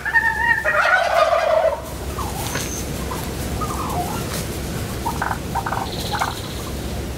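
Turkey calls: a tom's gobble within the first two seconds, then scattered short turkey calls and a quick run of clucks about five to six seconds in.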